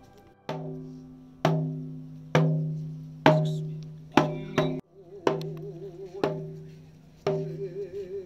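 Hand-held fan drum (uchiwa daiko) beaten by a Buddhist monk, about one strike a second, with a quick double stroke about four seconds in. Each hit rings briefly at a low pitch.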